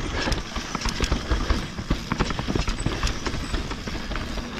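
Mountain bike descending a dirt singletrack: the tyres rumble on the ground, and the bike gives off a rapid, irregular run of sharp knocks and rattles as it bumps over the trail.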